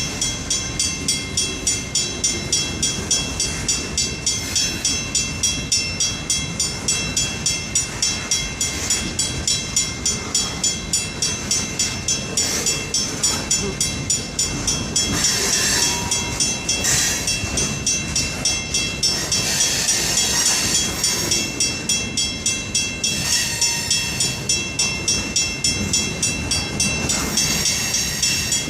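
Freight train rolling past, its wheels clicking over the rail joints in an even rhythm of about two clicks a second. Stretches of high-pitched wheel squeal come in about halfway through.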